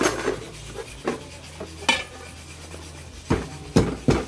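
A series of about six sharp knocks and clinks, like kitchen things being handled, with three quick louder ones near the end.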